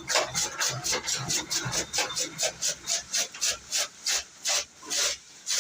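Hand-turned chaff cutter (toka) chopping green fodder, its blades shearing through the stalks in a steady train of rasping cuts, about four or five a second. The machine is being cranked by hand because there is no electricity to drive it.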